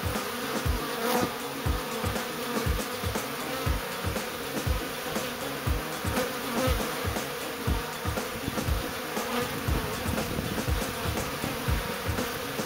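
A swarm of European honeybees buzzing steadily as they crowd and fly around their nest entrance, with repeated low thumps about twice a second underneath.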